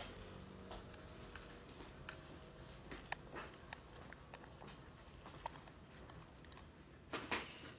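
Faint plastic clicks and small scrapes as fingers handle a contact lens cleaner's lens holder and twist its cap open, with a louder scrape near the end.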